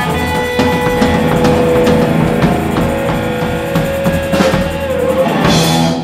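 Rock band playing the closing bars on full drum kit, bass and guitar over a held note, with two cymbal crashes in the last couple of seconds before the music stops at the very end.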